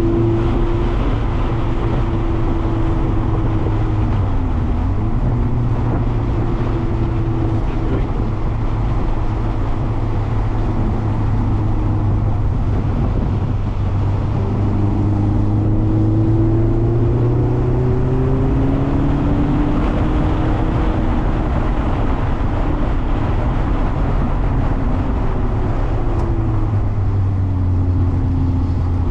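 Mazda MX-5 ND's four-cylinder engine running under load around a track, its pitch climbing slowly and dropping back several times as it accelerates and lifts, over steady road and tyre noise.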